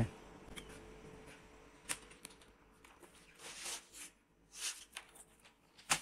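Handling noise from a laptop: scattered light clicks and taps of fingers on its keys, then brief scuffs as it is picked up and turned over, with a sharp click near the end.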